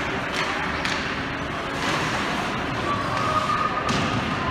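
Hockey rink game noise: a steady hubbub broken by a few sharp clacks, of the kind sticks and puck make against the ice and boards.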